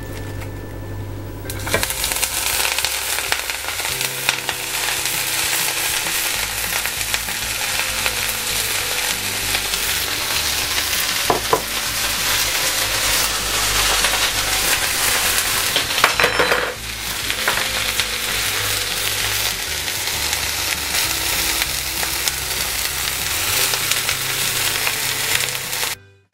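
Shredded cabbage frying in a little oil in a frying pan: a steady sizzle that starts about two seconds in, as the cabbage goes into the pan.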